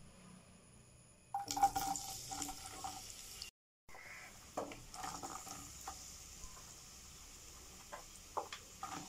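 Chopped onions frying in hot oil in a non-stick pan: a steady sizzle with scattered crackles and pops. About a second and a half in, the crackling gets louder for a couple of seconds, then cuts out briefly before the sizzle resumes.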